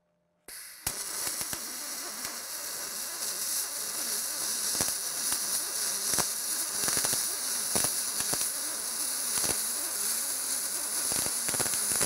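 MIG welding arc laying a bead on aluminum: a steady crackling hiss scattered with sharp pops. It strikes up about half a second in.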